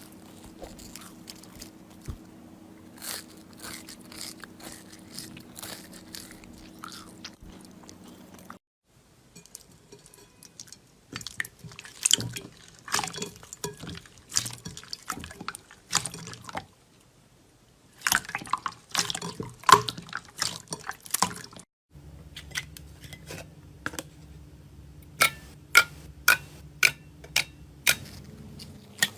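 Slime being squeezed, poked and stretched: a run of wet clicks, pops and crackles, in three clips joined by abrupt cuts, with a low steady hum under the first and the last.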